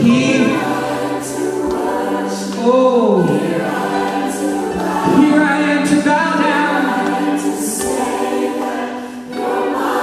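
Gospel worship music: a group of voices singing together over sustained held chords.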